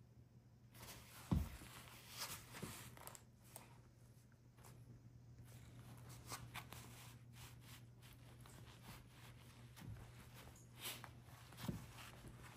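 A puppy chewing and pulling at a shaggy plush toy: faint rustling and scratching of the fur fabric with a few soft thumps, the loudest about a second and a half in and others near the end.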